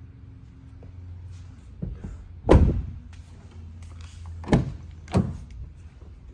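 Toyota Sequoia SUV door shut with a loud thunk, then the front door unlatched by its outside handle and opened, with two sharp knocks a little over half a second apart.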